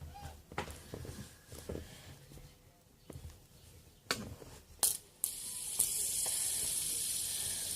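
Fidget spinner being handled with a few sharp clicks, then set spinning about five seconds in. It gives a steady high whirring hiss that slowly fades as it spins down.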